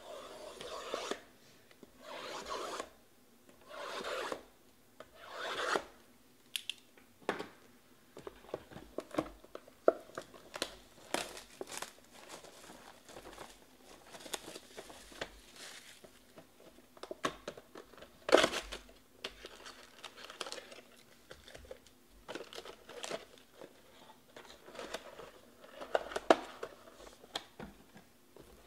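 Sealed cardboard trading-card hobby boxes being cut open and handled: a knife slitting the plastic wrap, with four long strokes in the first few seconds. After that come scattered crinkles of wrap, taps and clicks of cardboard being slid and set down.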